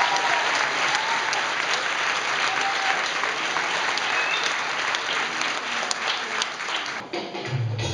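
Audience applauding a children's choir. The applause dies away about seven seconds in, and the accompaniment for the next song begins near the end.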